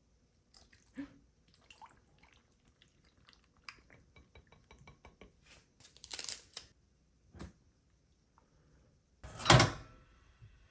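Kitchen work sounds: scattered light clicks and taps of utensils and dishes, with a quick run of even light ticks midway and a louder clatter about nine and a half seconds in.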